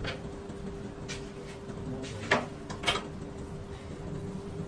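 A few short metal clinks and knocks, the loudest two between two and three seconds in, as a dial indicator on its stand is handled and set against the Teflon gear blank on the milling machine. A steady faint hum runs underneath.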